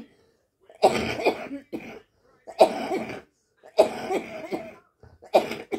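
A woman coughing into her hand, a run of five or six separate coughs about a second apart.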